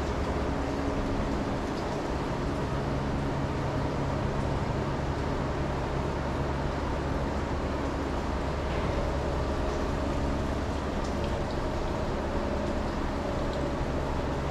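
Steady low machine hum with several held tones over an even hiss, unchanging throughout.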